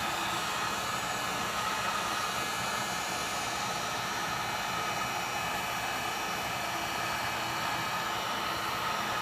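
Handheld hot-air blower running steadily, a constant rush of air with a faint high whine, heating the phone's front glass to soften the adhesive so the glass can be lifted off.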